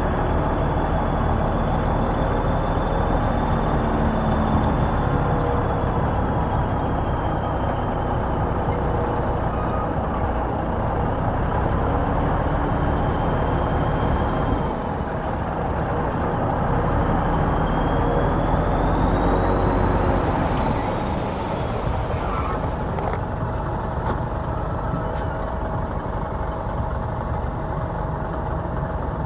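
Heavy diesel engines of earth-moving machinery running steadily under load, with a faint high whine that rises and falls.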